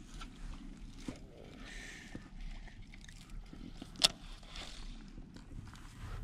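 Quiet handling of a baitcasting rod and reel in a canoe: small knocks and rustles, with one sharp click about four seconds in.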